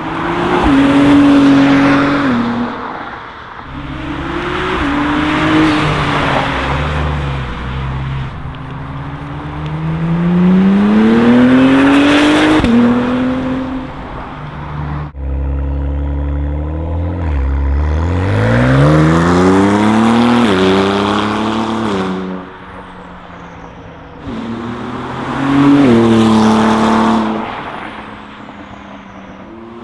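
A 2017+ Acura NSX's twin-turbo V6 accelerating past in several fly-bys. Engine pitch rises on each pass and drops back at each gear change. About halfway there is a cut: the first passes are on the stock exhaust, the later ones on Fabspeed high-flow sport cats with a Maxflo cat-back exhaust and tune.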